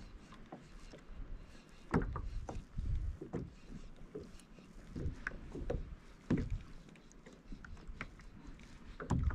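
Irregular knocks and thumps on a Hobie Compass polyethylene fishing kayak's hull, with small clicks in between, about a dozen spread unevenly over several seconds.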